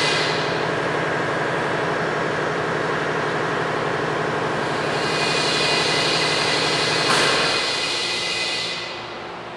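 Steady, loud machine noise, a hiss over a low hum, with a brief swell about seven seconds in, dropping away near the end.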